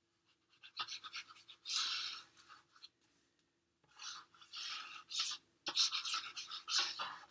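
Multipurpose liquid glue's applicator tip rubbed back and forth over cardstock paper, a few short scratchy strokes with brief pauses between.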